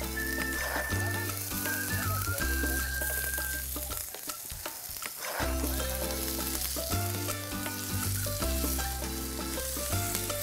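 Sliced onions sizzling in hot oil in a nonstick frying pan, a steady hiss. Background music with a bass line plays throughout and drops out briefly midway.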